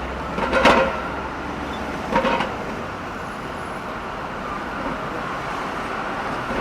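Busy city street ambience: a steady wash of traffic noise, with two short, louder sounds standing out about half a second and about two seconds in.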